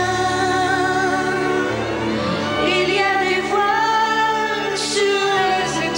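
A man and a woman singing a ballad duet in French, holding long notes with vibrato over a steady musical accompaniment.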